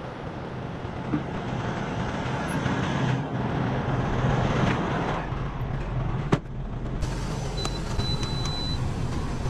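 Semi-truck diesel engine idling steadily, with a single sharp click about six seconds in. Shortly after, two high electronic beeps, a short one then a longer one.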